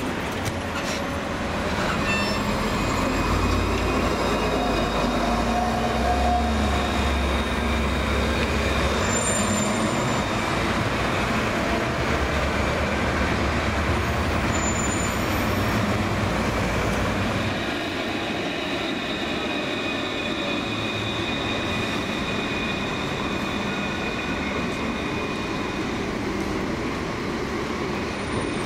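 An Alstom Citadis low-floor tram running past on curved street track: a low rumble of wheels and running gear with high, steady wheel-squeal tones. The rumble drops away a little over halfway through, while the high squeal carries on.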